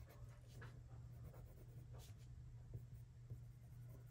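Faint scratching of a hard Faber-Castell Polychromos colored pencil stroking across Fabriano Artistico watercolor paper, in short irregular strokes. A steady low hum lies underneath.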